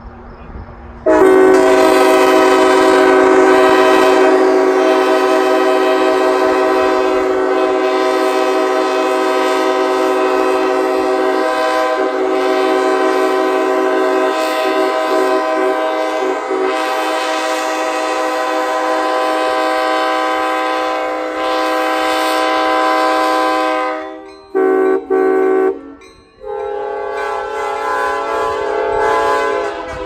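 Diesel locomotive air horn sounding a steady multi-note chord: one long blast of over twenty seconds starting about a second in, two short blasts, then another long blast near the end.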